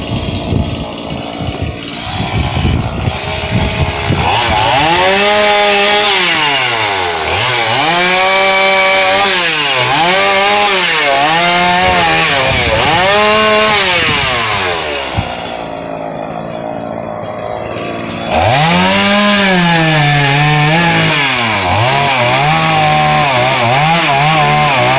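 Two-stroke gas chainsaw cutting through a tree limb, its engine speed falling and rising again every second or two. Its pitch drops to a quieter low hum for a few seconds past the middle, then it revs up and cuts again.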